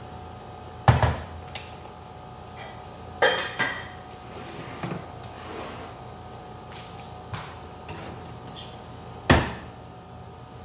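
Kitchen clatter: dishes and utensils knocked and set down on a countertop, in irregular clinks and thumps. The loudest come about a second in and near the end, with a quick cluster a little after three seconds, over a faint steady hum.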